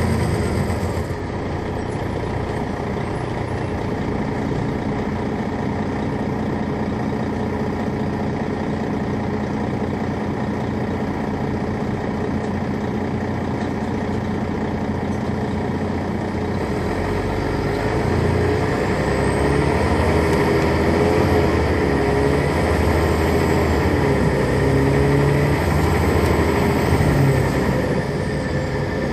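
2001 MCI D4000 coach's Detroit Diesel Series 60 diesel engine running steadily for about the first half. From a little past halfway it pulls harder, its pitch rising and falling, with a faint high whistle climbing and dipping above it.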